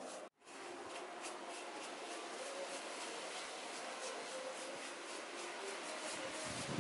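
Brush rubbing over a cast-cement baluster in short strokes against a steady background hiss, with a brief dull knock near the end.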